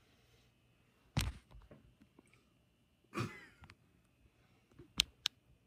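Scattered quiet kitchen handling noises: a thump about a second in, a short breathy sound a little after three seconds, and two sharp clicks near the end.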